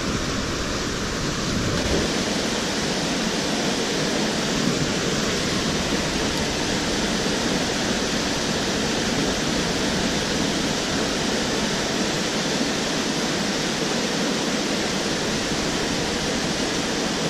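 Mountain stream rushing over rocks and small cascades: a steady roar of water.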